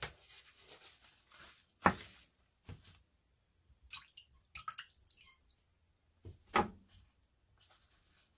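A cooked sweet potato lifted out of a bowl of water by hand, with water dripping and splashing, then the soft skin squishing as it is peeled. Several sharp knocks on the countertop come through it, the loudest about 2 seconds in and again about 6 seconds in.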